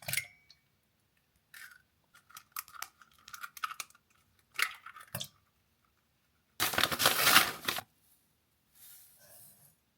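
Baking preparation handling sounds: scattered clicks and light crinkling, then a loud rough tearing or rustling noise about a second long roughly seven seconds in, and a faint rustle near the end.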